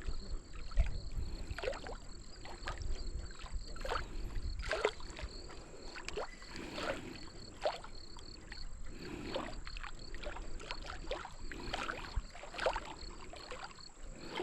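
Water lapping and slapping against the hull of a small boat in irregular short splashes, over a low rumble.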